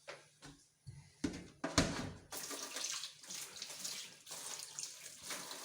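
A few short knocks of things being handled in the sink, then a kitchen tap turned on, its water running steadily to wash fruit from about two and a half seconds in.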